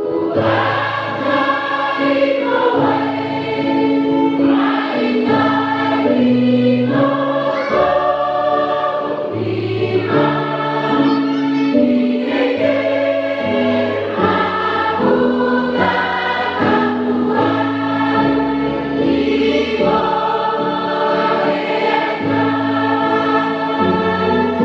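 Choir singing in several parts, holding sustained chords that change step by step over a steady bass line.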